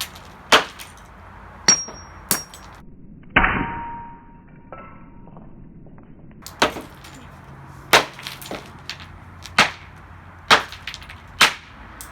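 Hammer blows striking a Dreamsky DS206 plastic alarm clock radio: sharp strikes about once a second. About three seconds in there is a louder clanging crash with a brief ring, then a pause of two or three seconds before the strikes resume.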